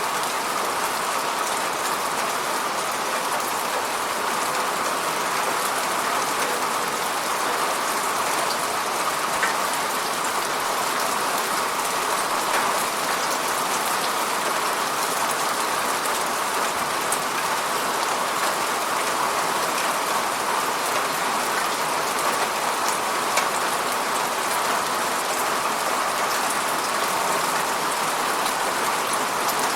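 Steady rain hitting a window pane, a dense even hiss with scattered sharper drop ticks.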